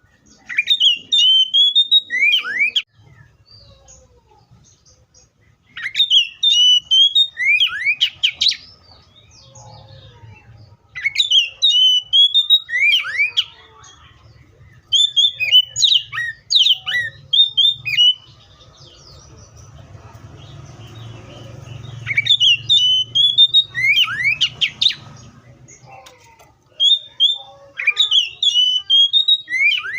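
Oriental magpie-robin singing: six whistled phrases of quick notes that glide up and down, each two to three seconds long, with short pauses between them.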